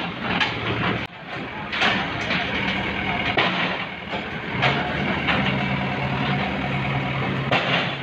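Backhoe loader's diesel engine running steadily under load, with repeated crashes and clattering of bricks and rubble as its arm knocks down a brick building.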